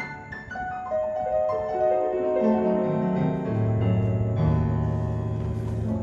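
Piano-led instrumental music from the close of a ballad, played back through Wharfedale Denton bookshelf speakers: a run of notes stepping downward, with a sustained low bass note coming in partway through.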